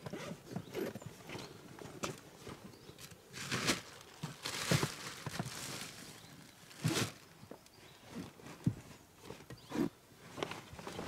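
Irregular knocks, clicks and rustling of fishing tackle being rummaged through: small boxes and gear handled and set down, with a few louder scraping rustles near the middle.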